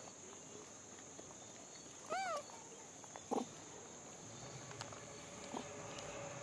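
A macaque gives one short call about two seconds in, its pitch rising then falling. A steady high insect buzz runs underneath, and a few faint knocks come later.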